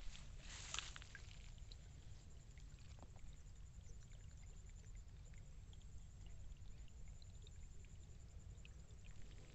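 Rice plants rustling as they brush past, briefly within the first second, then a faint steady low rumble on the microphone with a few scattered soft ticks.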